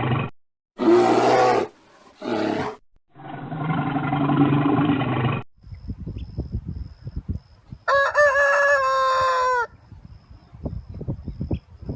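A rooster crowing once with a long held final note, about eight seconds in. Before it come other short, loud animal calls cut one after another, then scattered low clicks.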